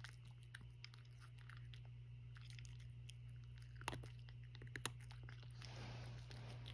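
Cat crunching dry kibble: a run of faint, crisp crunches, with two louder ones about four and five seconds in. A steady low hum runs underneath, and a soft hiss comes in near the end.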